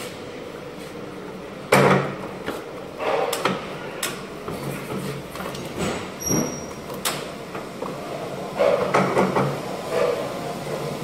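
Clatter of pallet and crate handling at a warehouse loading dock: a string of knocks and bangs, the loudest a sharp bang about two seconds in, with a brief high beep near the middle.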